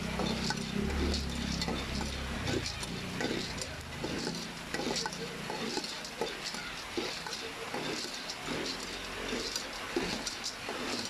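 A black plastic spatula stirring unpopped popcorn kernels around in hot oil in an aluminium pot, with irregular scraping strokes and kernels rattling against the metal, over a light sizzle of the oil.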